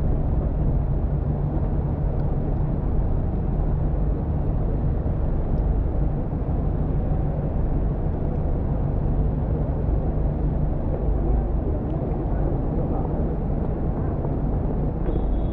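Steady low rumble of city street traffic, with faint voices of passers-by about three-quarters of the way through.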